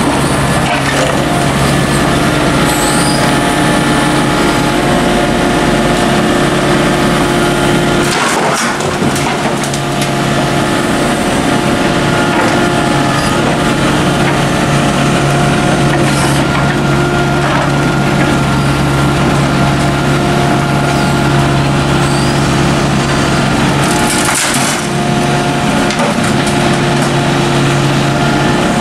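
Volvo mini excavator's diesel engine running steadily under working load. Rubble scrapes and clatters in the bucket, most sharply twice, about eight and twenty-four seconds in.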